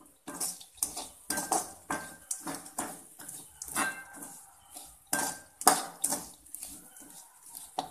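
A spatula stirring a dry mix of crisp fried appalam (papadum) pieces in a metal kadai, with irregular scrapes and knocks against the pan about two or three times a second, some leaving a faint ring.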